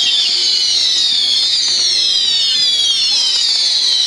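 Whistling fireworks fired in quick succession: many shrill whistles overlapping, each one falling in pitch as it burns, with only faint bangs beneath.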